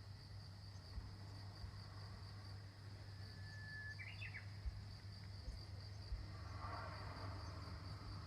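Japanese bush warbler (uguisu) singing once, faintly: a long held whistle about three seconds in, then a quick rising flourish of notes, the 'hoo-hokekyo' song. A steady high pulsing trill goes on behind it.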